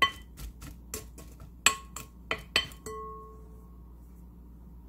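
Glass mixing bowl clinking about seven times in quick succession as chopped onion is tossed in it with salt; the last clink rings on for about a second, then it goes quiet.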